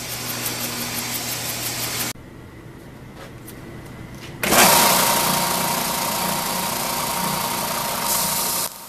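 A bandsaw running with a steady hum for about two seconds, then cut off. About four and a half seconds in, a Ridgid oscillating edge belt sander starts suddenly and runs loud with a steady whine and hiss, with a plywood piece held against its belt near the end.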